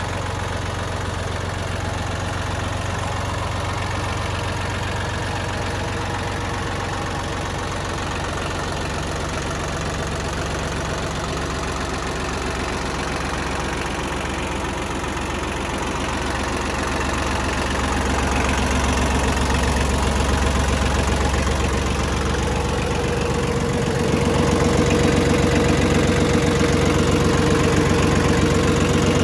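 Yanmar YM2202D compact tractor's 22 hp diesel engine idling steadily. It grows louder about two-thirds of the way through and again near the end, when a steady higher hum joins in.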